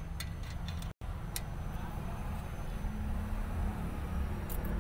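Scattered sharp metallic clicks and taps of a spanner and feeler gauge working on a Maruti Omni's rocker arms while the valve clearance is set and checked for play, several in the first second and a couple near the end, over a steady low hum.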